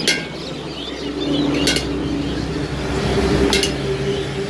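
A motor vehicle's engine running, its hum growing louder to a peak a little past the middle and then easing off. Three brief metallic clinks of a spoon against a steel tin are heard, at the start, near the middle and near the end.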